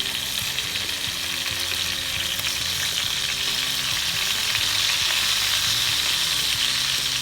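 Chicken pieces sizzling steadily in butter and oil in a frying pan, the pan still hot just after the heat is turned off.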